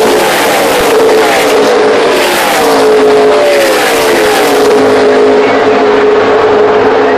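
NASCAR Camping World Truck Series trucks' V8 engines at racing speed, loud, as a pack passes by: several engine notes fall in pitch one after another as trucks go past, then settle into a steady drone of the pack moving away.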